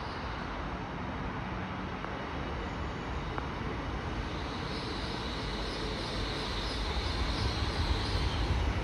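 A train moving through the station: a steady rumble that grows louder in the second half, with a high wavering whine that comes in about four seconds in and fades just before the end.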